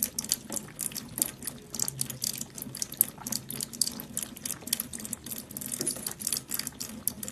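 A cat's tongue rasping over another cat's fur in quick, repeated licks, several short rasps a second, close to the microphone.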